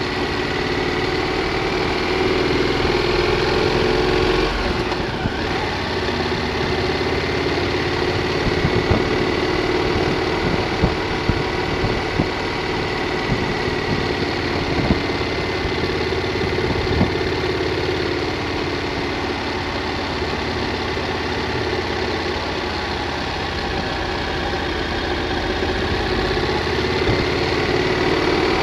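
Triumph Thunderbird motorcycle engine running on a steady ride, with wind noise over the camera microphone and scattered short knocks. The engine note shifts about four to five seconds in.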